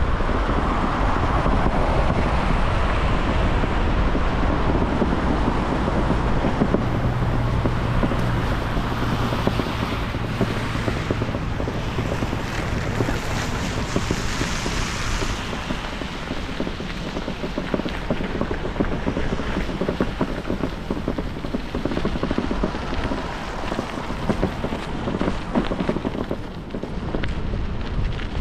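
Wind buffeting the microphone of a camera carried on a moving bicycle, mixed with rolling road noise. A low steady hum joins for several seconds about a quarter of the way in.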